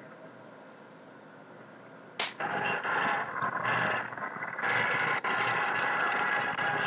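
Arena crowd noise, low at first, jumping suddenly much louder about two seconds in and staying loud.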